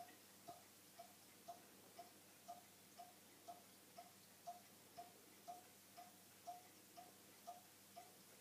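Faint, regular ticking, about two ticks a second, each tick a short clear click over near silence.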